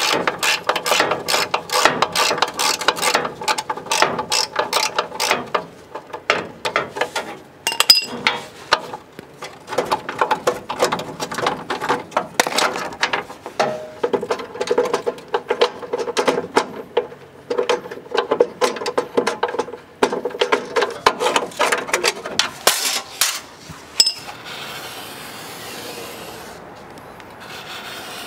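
Ratchet wrench clicking in repeated quick runs of strokes as a fastener is turned, then a few seconds of steady rubbing near the end.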